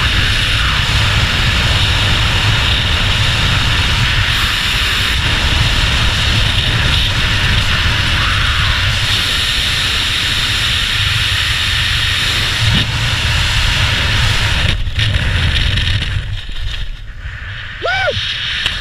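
Freefall wind rushing over a skydiver's helmet-camera microphone: a loud, steady, buffeting roar that eases about three seconds before the end, where a few short high chirps sound.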